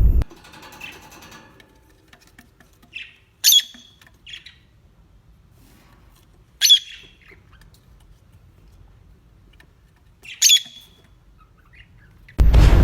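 Peacock giving three short, sharp, high squawks about three seconds apart. A loud, dense burst of noise cuts off just after the start, and another begins near the end.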